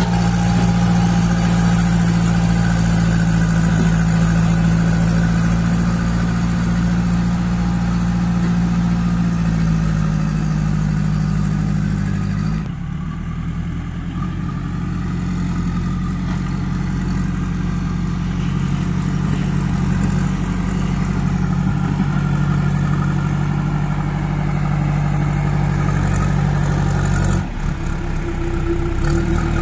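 Kirloskar diesel engine of a JCB 2DX backhoe loader running steadily. Its note shifts about ten seconds in, drops briefly about thirteen seconds in, and changes again near the end.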